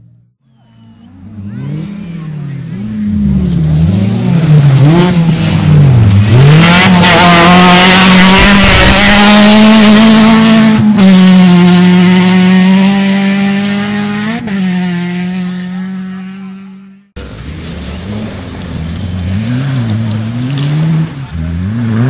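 Rally car on a dirt stage approaching with its engine revving up and down through quick gear changes, passing loud with a rush of tyre and gravel noise, then holding high revs as it pulls away. After a sudden cut, another rally car's engine is heard revving up and down, quieter.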